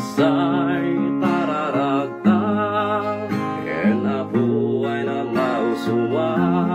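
A song: acoustic guitar strummed under a singing voice that holds long notes with vibrato.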